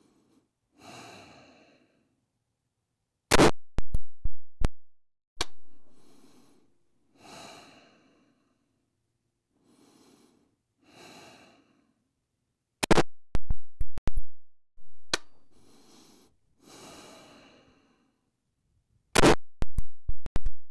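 Three 5.56 mm shots from an AR-15/M4 rifle, spaced several seconds apart, firing a confirmation group on a 25-meter zero. Each sharp crack is followed by a few fainter cracks within about a second. The shooter breathes audibly between the shots.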